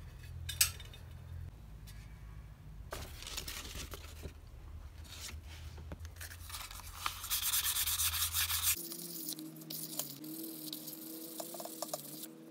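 Cloth rubbing back and forth along a painted bicycle rim, wiping and polishing it in irregular strokes. The rubbing is loudest shortly before a faint steady hum comes in about nine seconds in.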